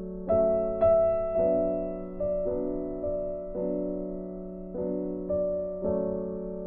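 Background music: slow, gentle piano, single notes and chords struck and left to ring out.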